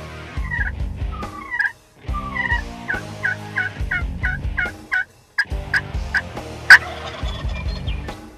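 Wild turkey toms gobbling repeatedly, the loudest call about two-thirds of the way through.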